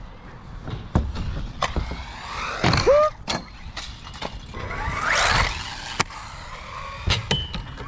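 Arrma Typhon Grom mini RC buggy's electric motor whining in short rising and falling glides as it accelerates and slows, with a string of sharp knocks and clatters as the little car lands and bangs against the skatepark concrete.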